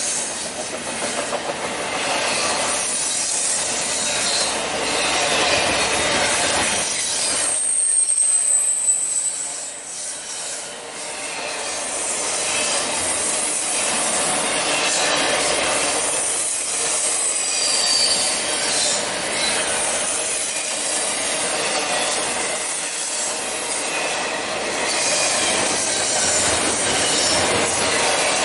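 Double-stack intermodal freight train rolling past, its steel wheels running steadily on the rails. Brief high wheel-flange squeals come through a couple of times, about a third of the way in and again past the middle.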